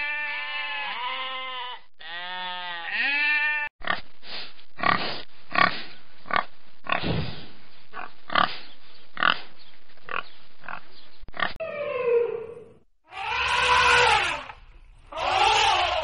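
Sheep bleating for the first few seconds. After a sudden cut, domestic pigs grunt over and over in short grunts. Near the end an elephant calls twice, loudly.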